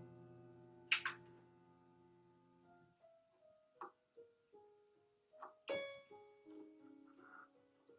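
Quiet, sparse piano improvisation. A low held chord dies away over the first three seconds, then single notes are played slowly one after another, with a sharp click about a second in.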